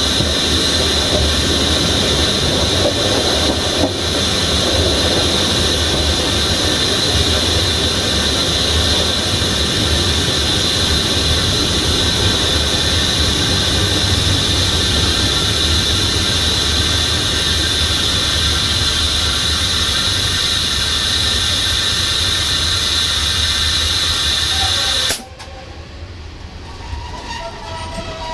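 Passenger train running on the track, heard from its rear: the rumble of wheels on rail under a steady high-pitched squeal from the wheels or brakes. About 25 s in the sound cuts off abruptly and gives way to a much quieter background.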